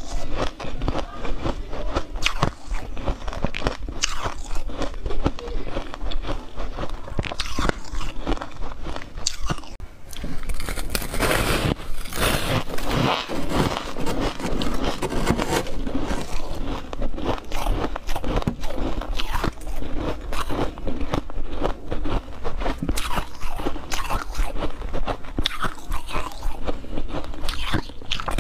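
Close-miked biting and chewing of refrozen freezer frost ice: a dense run of crisp crunches, one bite after another.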